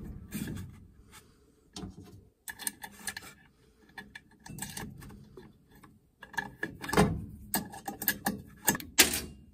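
A nut being threaded and tightened by hand and with a small metal wrench on a boiler draft inducer's mounting flange: irregular small metallic clicks, taps and scrapes, in several clusters.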